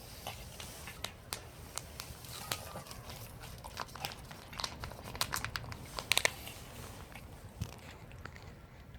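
Calico stray cat chewing, a string of irregular sharp crunching clicks that come thickest in the middle, with the loudest cluster about six seconds in.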